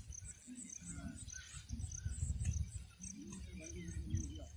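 Countryside ambience: short high chirps from birds or insects repeat evenly, about four a second, over a low uneven rumble.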